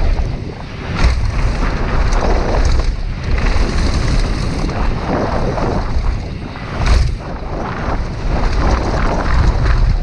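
Wind buffeting the microphone of an action camera on a mountain bike riding fast downhill on a dirt trail, with the tyres rumbling and the bike rattling over the ground. A couple of sharp knocks come through, one about a second in and another past the middle.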